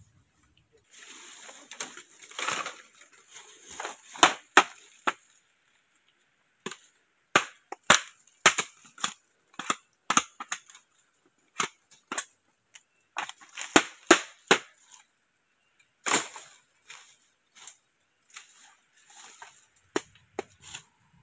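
Machete chopping through bamboo and undergrowth: a string of sharp cracks and snaps at an uneven pace, with dry bamboo leaf litter and brush rustling between strikes.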